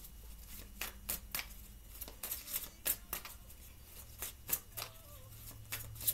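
Tarot deck being shuffled by hand: a run of short, soft card clicks and snaps, irregular, about two or three a second.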